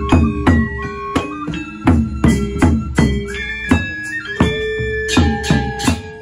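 Balinese gamelan gong ensemble playing: struck bronze instruments in a steady beat of about three strokes a second, their pitches ringing on between strokes, with sharp high metallic strikes.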